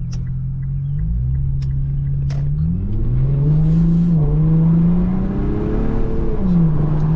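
Infiniti Q50's twin-turbo V6 accelerating through the gears. Its pitch climbs, falls at an upshift about four seconds in, climbs again, and falls at a second upshift near the end.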